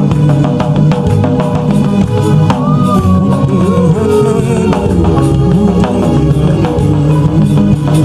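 Live church band music with drums and a steady beat under a bass line. A lead melody slides and bends in pitch from about two and a half seconds in.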